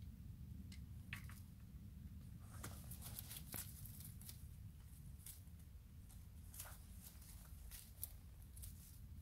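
Faint, irregular crackling and rustling of dry reed stems as someone moves and handles gear among them, over a steady low rumble.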